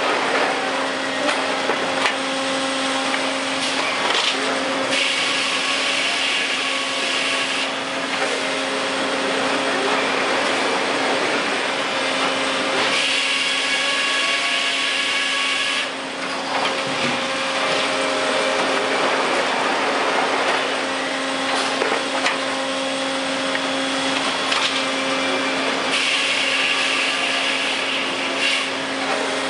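Sawmill headrig with overhead circle saws running steadily with a constant hum, three times rising for a few seconds into a harsher sawing sound as the saws cut through a log. Occasional short knocks from the machinery.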